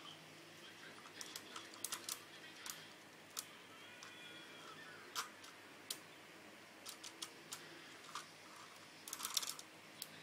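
Hard plastic clicks and clatter of a Lego fire truck and its ladder being handled. Single clicks are scattered through, with a quick rattle of several together near the end.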